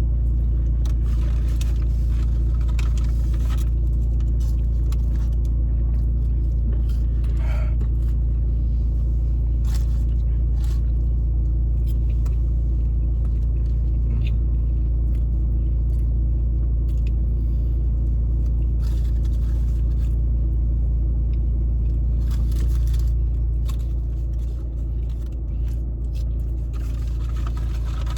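Steady low rumble with faint scattered clicks and rustles over it, easing slightly in level near the end.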